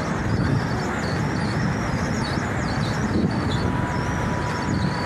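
Steady rushing noise of a flooded street in heavy rain, water and traffic mixed together.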